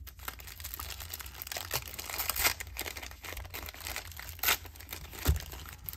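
Hands crinkling and tearing open the wrapper of a 1991 NFL Pro Set football card pack: a run of irregular crackles and rustles, a few of them louder, with a soft low bump near the end.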